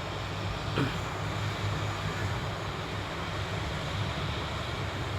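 Hot air rework station blowing steadily on low airflow, heating a phone's battery connector to melt its solder so it can be lifted off the board. A faint tick about a second in.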